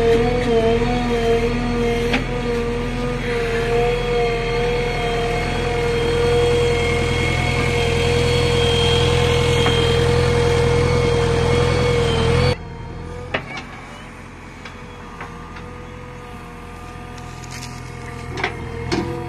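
JCB 3DX backhoe loader working its digging arm: the diesel engine and hydraulics running under load with a steady whine. About two-thirds through, the sound drops abruptly to a quieter engine run with scattered clanks and knocks as the bucket works the soil and stones.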